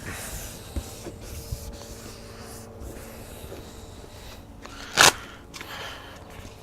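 Quiet handling noises and small clicks as builder's flash band tape is worked onto a plastic water butt, with one short, loud rasp about five seconds in.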